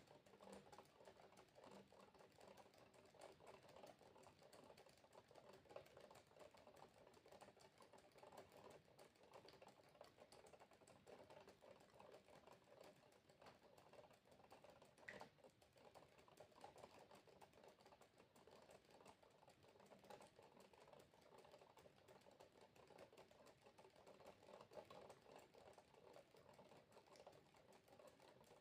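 Faint, dense patter of water droplets dripping, many small ticks with no steady rhythm, and an occasional louder drop, the clearest about halfway through.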